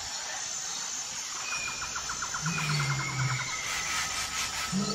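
Low, falling growl-moans of a big cat, one lasting about a second near the middle and another starting near the end. Under them run a rapid chattering call and thin whistles.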